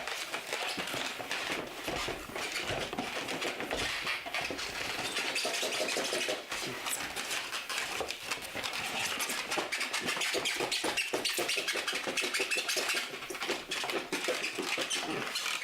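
Packaging rustling and crinkling in a long run of dense, irregular crackles as the box of an aquarium air compressor is unpacked by hand.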